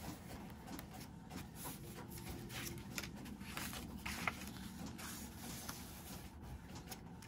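Faint rustling and soft clicks of paper and cardstock being folded along scored lines and handled on a craft mat, against a low steady background hum.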